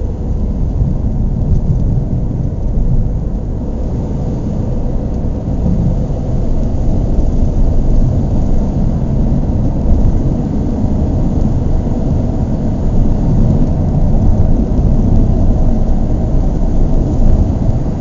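Car engine running with a steady low rumble and no clear revving.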